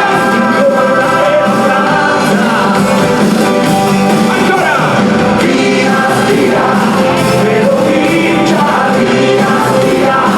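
Rock band playing live with a singer over the instruments.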